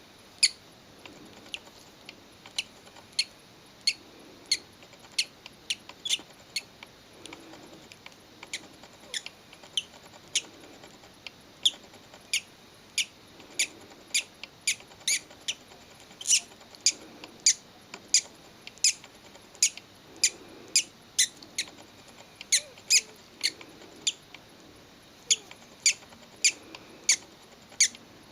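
Hatching chick peeping: short, sharp, high-pitched cheeps repeated over and over at an irregular pace, roughly one to three a second.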